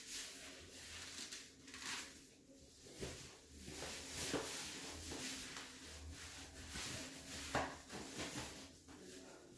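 Faint handling noises: scattered small clicks, knocks and rustles, with one sharper click about seven and a half seconds in.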